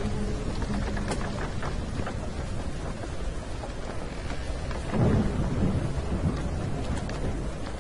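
Steady rain with a rumble of thunder about five seconds in.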